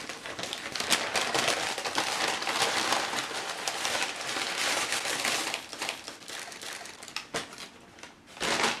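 Brown paper takeout bag crinkling and rustling as it is opened and rummaged through, then the paper wrapping of the food being pulled out. The crinkling is dense and loud for the first five seconds or so, then thins to softer scattered rustles, with one short loud crinkle near the end.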